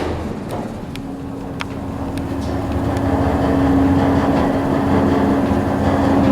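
Montgomery freight elevator's hydraulic pump motor running as the car goes up: a steady mechanical hum, with a steady tone coming in about a second in and the sound growing slightly louder.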